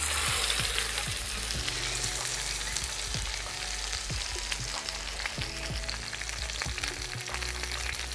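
A large cut of beef searing in hot oil in a preheated cast-iron Dutch oven: steady sizzling and crackling that starts suddenly as the meat goes in, loudest in the first second or so.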